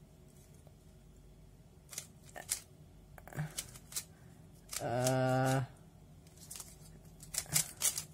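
3x3 Rubik's cube being turned by hand: scattered quick clicks of the layers snapping round. About five seconds in, a short steady hummed 'mm' from a voice, the loudest sound.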